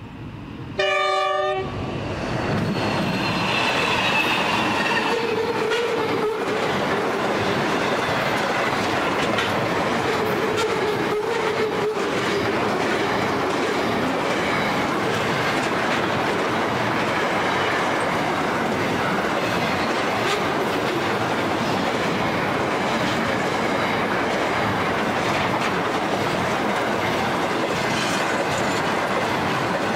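A pair of Pacific National NR class diesel locomotives sound a short horn blast about a second in, then run past hauling a long container freight train. The loaded container wagons roll by steadily, their wheels clicking over the rail joints.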